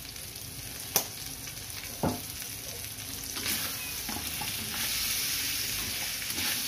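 Chicken, carrots and potatoes sizzling in a hot stainless steel wok as a spatula stirs and scrapes them, with two sharp clinks about a second apart in the first half. The sizzle grows louder about halfway through.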